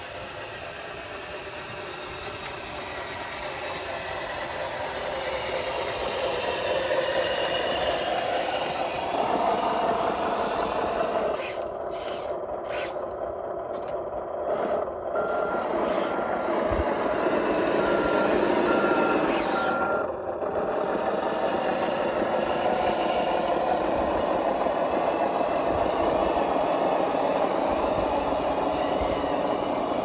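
Radio-controlled HG P802 8x8 truck hauling a lowboy trailer: its motor and drivetrain run steadily and grow louder as it comes near. About halfway through, a reversing beeper sounds at one steady pitch, about once a second for five seconds or so.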